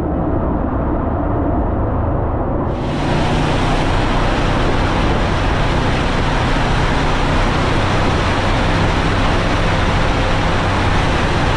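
Motorcycle riding at speed: engine drone under heavy wind noise on the microphone. About three seconds in, a louder rushing hiss cuts in abruptly.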